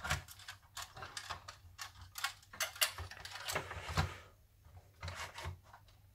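Hard plastic parts of a Bigtrak toy clicking and knocking together as its gearbox-and-wheel assembly is handled and pressed into the plastic case. There is a dense run of irregular clicks for about four seconds, then it goes quieter with a few more clicks.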